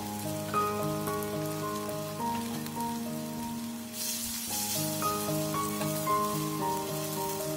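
Instrumental background music, a melody of held notes, over the faint sizzle of anchovy pancake batter frying in oil. The sizzle briefly grows louder about four seconds in, as a fresh spoonful of batter goes into the hot pan.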